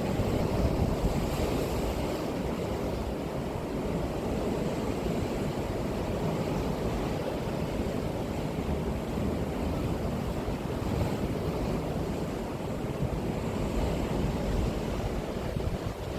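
Sea waves breaking and washing up the shore in a steady surf noise, with a couple of gentle swells as waves come in. Wind buffets the microphone with a low rumble throughout.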